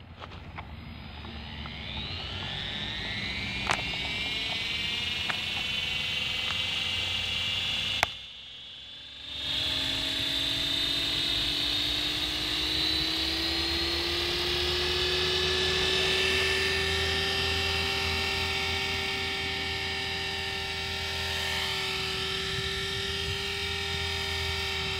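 Devil X360 electric RC helicopter on a 3-cell battery spooling up, its motor and rotor whine rising over the first few seconds, then running steadily at speed. The sound drops out briefly about eight seconds in.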